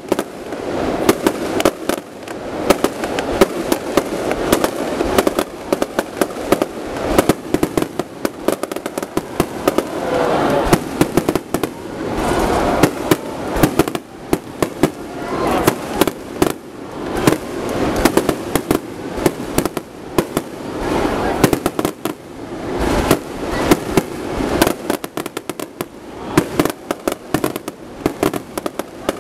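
Aerial firework shells bursting in a dense, continuous barrage, many sharp bangs close together with crackling between them.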